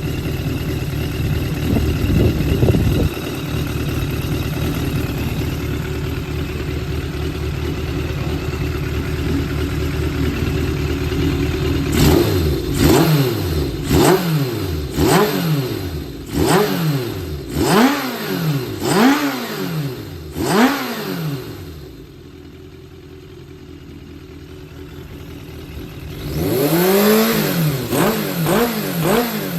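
Suzuki GSX400 Impulse (GK79A) inline-four engine assembly running, steady at first, then blipped in about eight quick revs. It drops back to a quieter idle for a few seconds and is revved again near the end. The seller describes it as running with high compression and no abnormal noise.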